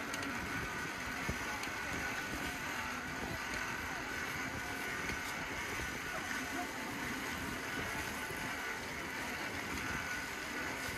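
A noisy bicycle ridden along a path: steady tyre and mechanical noise.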